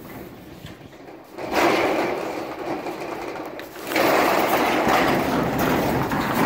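Metal roll-up door of a storage unit being raised, a rough rattling noise that comes in about one and a half seconds in and gets louder from about four seconds.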